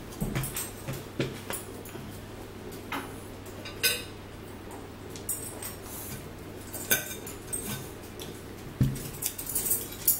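Cutlery clinking and scraping on plates during a meal: a knife and forks cutting and picking up food, with a sharp clink every second or so and a quick run of clicks near the end.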